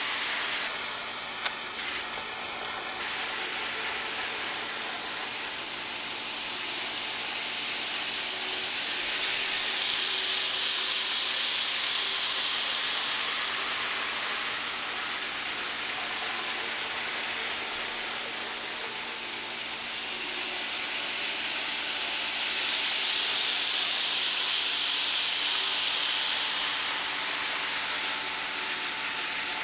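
N gauge model train running on the layout: a steady hiss of small wheels and motor that swells twice as the train comes near. A brief three-pitched tone sounds twice about a second in.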